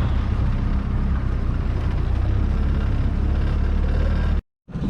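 Boat motor running steadily under way, a dense low rumble. The sound breaks off for a moment near the end.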